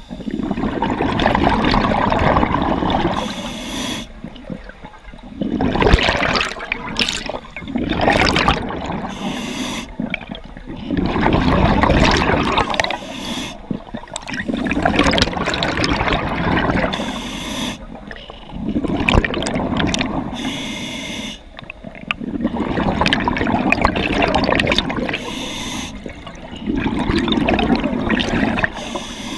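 Scuba diver breathing through a regulator underwater: hissing inhalations alternating with bubbling, gurgling exhalations, slow and steady.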